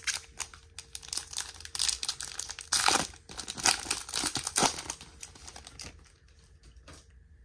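Foil wrapper of a Topps baseball card pack crinkling as it is torn open and the cards pulled out. There are dense rustles for about six seconds, loudest about three seconds in, and then it quietens.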